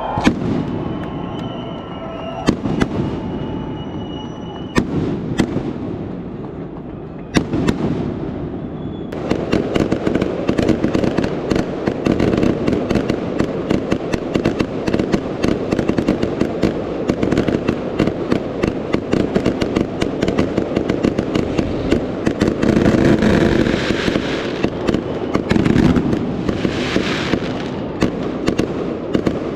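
Fireworks display: a few separate bangs, then from about nine seconds in a dense, unbroken crackle of rapid pops that swells twice near the end.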